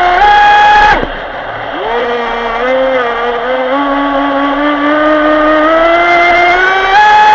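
RC speedboat's Leopard 2000kv brushless motor whining under throttle, heard from on board with water rushing along the hull. The pitch drops sharply about a second in as the throttle comes off, then climbs steadily as it is wound back up, and steps up to full speed near the end.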